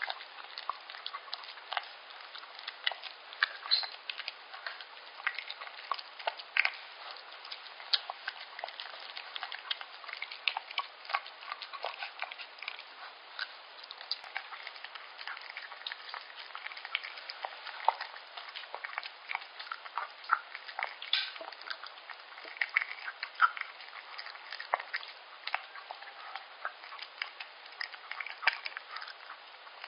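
Yorkshire terrier eating soft liver pâté from a stainless steel bowl: chewing, licking and lip-smacking in quick, irregular clicks.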